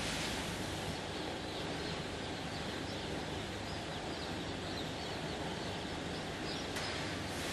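A mass of day-old chicks peeping all at once: a dense, continuous chorus of short high cheeps, over steady machine noise from the hatchery line.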